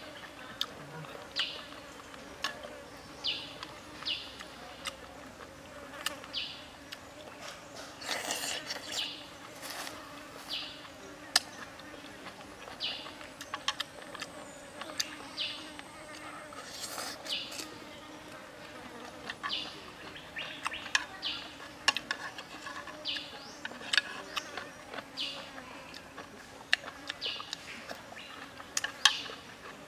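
Eating sounds: chewing and lip smacks, with a metal spoon clicking and scraping against a small pan, over a steady low background hum.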